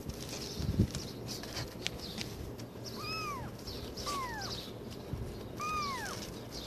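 Kitten meowing three times, each a short high call that rises and falls in pitch. There is a low thump about a second in.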